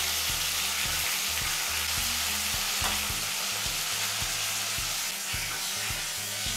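Pieces of aar catfish frying in hot mustard oil in an aluminium kadai: a steady sizzle with spitting, and a few light clicks of a spatula against the pan as the pieces are turned.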